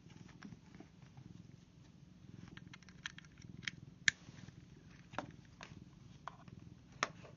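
Scattered small clicks and taps from handling an Ethernet cable tester and its plugged-in RJ-45 connectors, the sharpest about four seconds in, over a low steady hum.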